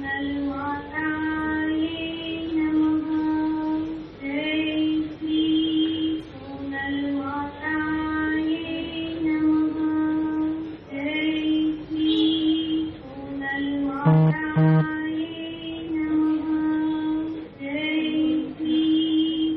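A devotional aarti song, sung by a female voice in short repeated melodic phrases.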